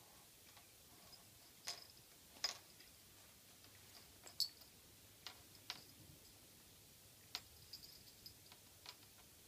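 Near silence with about a dozen faint, sharp clicks and ticks at irregular intervals, two a little louder than the rest.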